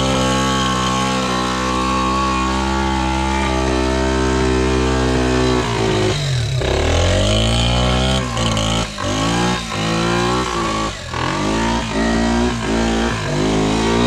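Yamaha Badger 80 quad's small single-cylinder four-stroke engine running on a test run after a no-start repair. It holds a steady speed, then about six seconds in the revs drop and climb again. After that the throttle is blipped on and off, the revs dipping and rising roughly twice a second.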